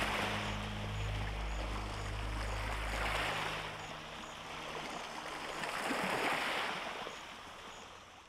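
Rushing water that swells and recedes three times, over a low held music chord that fades out about halfway through; the whole sound dies away near the end.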